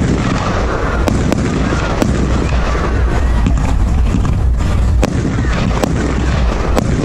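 Fireworks going off: irregular sharp bangs and cracks, about half a dozen, over a steady low rumble.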